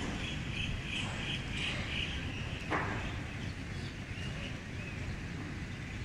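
Outdoor ambience: a steady low rumble under a small bird chirping rapidly, about five chirps a second, for the first two seconds, then a few single chirps later. A short sharp sound stands out just before the middle.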